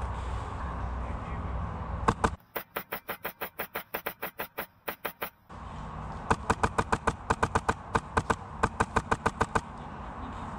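Airsoft gun firing rapid semi-automatic shots, about five or six a second, in two long strings a second apart, over a steady low rumble.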